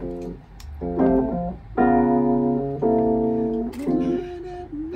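Electric piano playing a soul chord phrase: short chords, then two chords held for about a second each in the middle.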